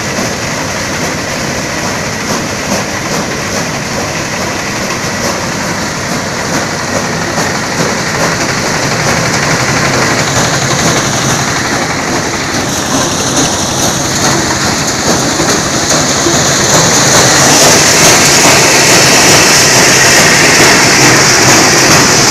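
Conveyor-fed corn sheller running under load, driven by a single-cylinder diesel engine: a steady engine drone under a dense clattering rattle of cobs being threshed. It grows louder and hissier in the second half as a stream of shelled kernels pours out of the outlet chute.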